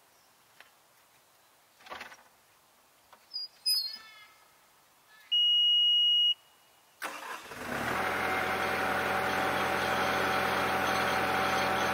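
A skid steer's diesel engine cranks and catches about seven seconds in, then runs steadily at idle. Before that come a thump and a few clicks as the operator gets into the cab, and a steady warning beep of about a second.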